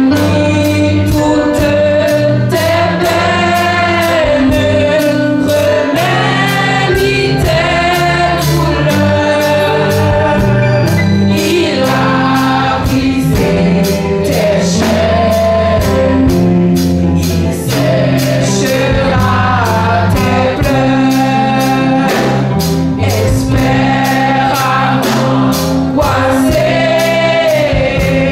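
A gospel song performed live: a group of young women singing together over electric guitar, bass guitar and a drum kit keeping a steady beat.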